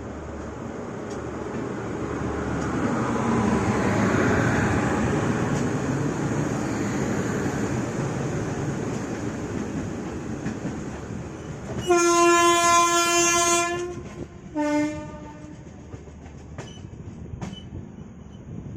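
Running noise of a moving express train that swells and eases, then a train horn: one long blast of about two seconds followed by a short second blast. A few faint clicks near the end.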